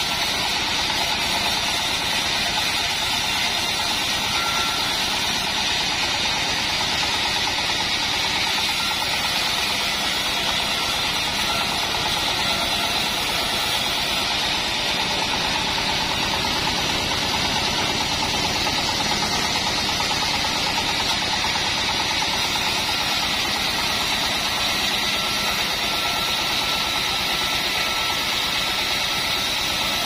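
Engine-driven homemade band sawmill running steadily while its band blade saws a timber slab lengthwise into boards.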